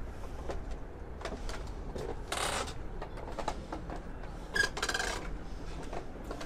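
Footsteps knocking and creaking on a wooden plank balcony floor, with a scuff a couple of seconds in and a brief squeak a little past halfway, over a low steady wind rumble on the microphone.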